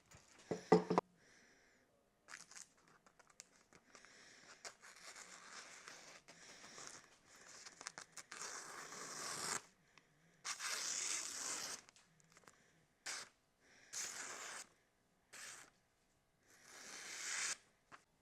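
A freshly sharpened Elmax-steel pocket knife slicing through paper in a series of dry, rasping strokes, each about a second long. There is a sharp knock about a second in.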